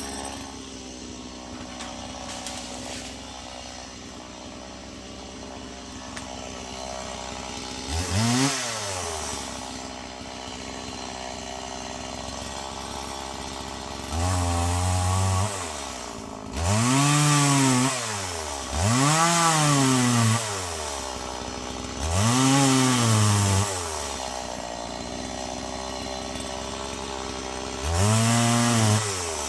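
Stihl two-stroke chainsaw idling, then opened up to full throttle in about six bursts of one to two seconds each, the engine pitch rising and falling with every burst, as it bucks dead ash logs into firewood.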